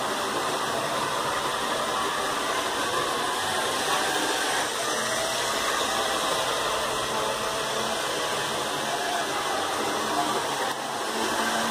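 Model freight train running on the layout's track: a steady whirring rush of the locomotive's motor and the wagons' wheels rolling on the rails.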